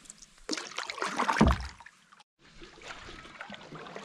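Canoe paddling: water splashing and trickling off the paddle, with a loud low thump about a second and a half in. The sound cuts out for a moment just past halfway, then quieter water trickling follows.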